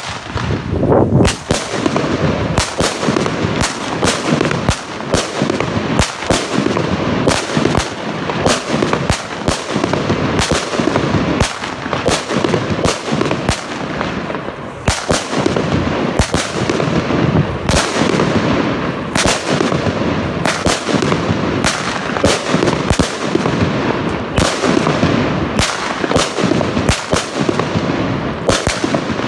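Jorge Thunder King salute battery firing its salute shots: a rapid series of loud, sharp bangs, roughly one or two a second, with a continuous hiss and crackle between them.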